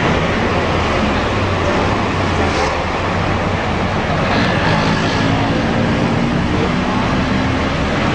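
Steady city road traffic: cars and other motor vehicles running along the road close by, with a low engine hum under a constant wash of noise.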